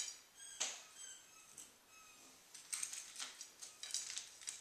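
Plastic spoon scraping and tapping crumbled granola on a paper plate: light, scratchy clicks and rustles, a few at first and then a quick run of them in the second half.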